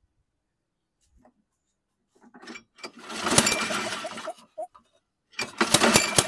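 Toro Recycler mower's small engine pull-started twice, about three seconds in and again near the end. Each pull spins it over with a rising whir and sharp pops, but it does not run. The owner takes the popping for backfiring through the carburetor, in an engine with no compression.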